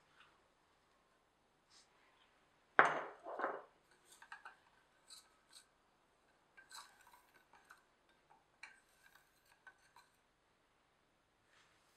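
Plastic spoon stirring sugar into water in a stainless steel saucepan, with light scrapes and clicks against the pot and a faint metallic ring. Two louder knocks come about three seconds in as the spoon strikes the pot.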